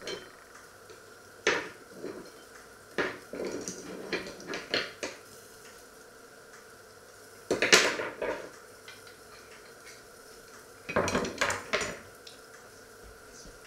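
Metal kitchenware clattering and clinking in several bursts as stainless pots, lids and utensils are handled, the loudest bursts about 8 and 11 seconds in.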